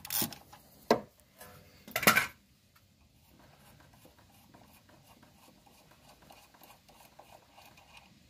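Metal clanks and a sharp click as a socket wrench loosens an on-car brake-line flaring tool. There is a clank at the start, a click about a second in and a louder clank about two seconds in. Then faint scraping and rattling follow as the tool is turned off by hand.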